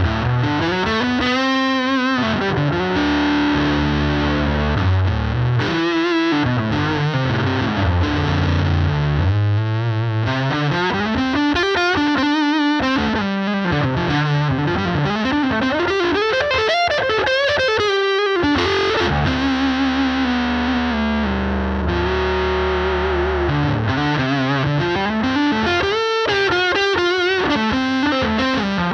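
Electric guitar through an EarthQuaker Devices Life Pedal V3 distortion into a Fender Princeton Reverb amp, set to high gain with op-amp clipping. It plays heavy, sustained distorted notes and riffs, with notes bent up and down.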